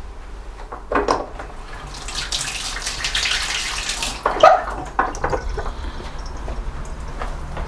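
Kitchen tap running into a sink for about two seconds, between knocks of things being handled at the sink. The loudest is a sharp clunk just after the water stops.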